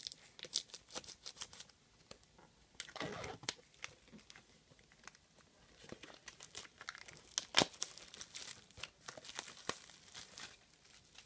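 Plastic shrink-wrap being torn and peeled off a Blu-ray steelbook case: irregular crinkling and crackling, with a sharp loud crack about two-thirds of the way through.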